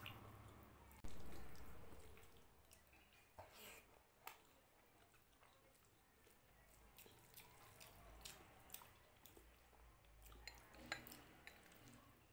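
Faint wet eating sounds: scattered clicks and squelches of fingers mixing rice with dal and of eating, with one louder thump about a second in.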